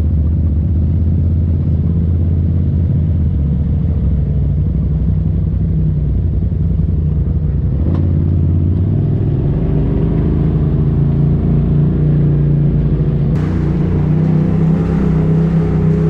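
Polaris RZR side-by-side engine running as it drives along a rough trail, heard from on board. The engine note climbs after about 8 seconds, and the sound changes abruptly about 13 seconds in.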